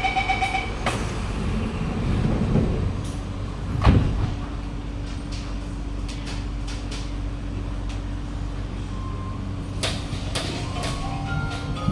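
Door-closing chime of a Kawasaki–CSR Sifang C151A MRT train beeping rapidly and stopping about a second in, then the sliding doors shutting with a thud about four seconds in. A steady low hum follows inside the carriage.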